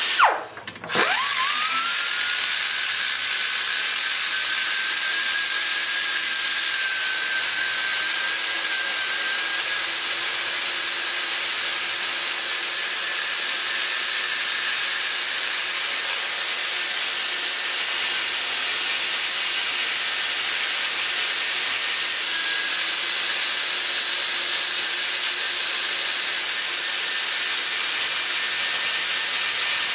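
Die grinder with a long-shank burr grinding the cast iron combustion chamber of a Ford FE 390 cylinder head, lowering the machinist ridge by the valve seat. It cuts out briefly right at the start, spins back up with a rising whine, then runs steadily with a high hiss.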